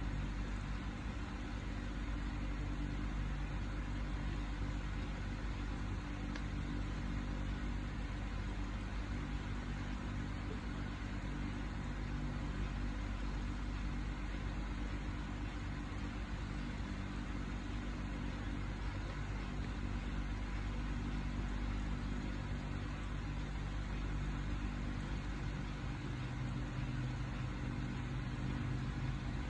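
Steady motor hum of an electric fan running close by, with a constant low drone. A deeper note joins about 26 seconds in.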